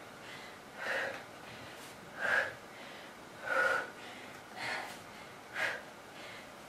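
A woman breathing hard from exertion during side-lying tricep push-ups: five short, sharp breaths about a second and a quarter apart.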